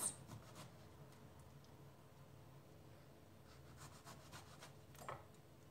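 Faint sounds of a kitchen knife slicing lengthwise through an eggplant on a wooden cutting board: soft scraping and a few light taps, a little more distinct about five seconds in.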